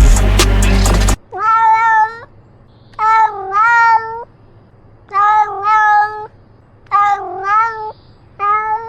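Domestic cat meowing, a run of short meows mostly in pairs with brief pauses between, after music cuts off about a second in.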